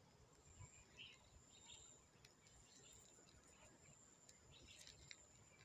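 Near silence: faint outdoor ambience with a steady, very high thin tone and a few soft, short chirps.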